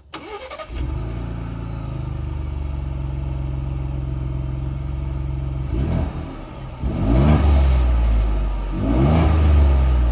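Ford Bronco's 2.7-litre twin-turbo V6 cranking and catching, then idling steadily on its stock exhaust. It is revved three times, a short blip about six seconds in, then two longer rises in pitch near the end.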